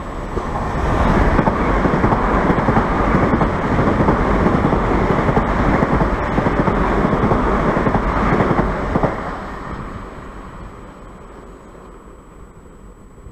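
Southern electric passenger train passing through the station at speed without stopping: a rush of wheel-on-rail and air noise that swells within the first second, holds for about eight seconds, then fades as the train draws away.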